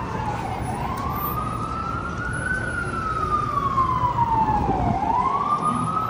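Emergency vehicle siren wailing, its pitch sliding slowly up and down in cycles of about four seconds, over the low rumble of city street traffic.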